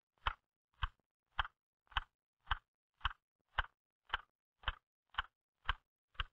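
Typewriter keys struck one at a time in a steady, even rhythm, about two strokes a second. It is a home-row drill for accuracy and rhythm, with keys typed alternately from the outer fingers inward and back out.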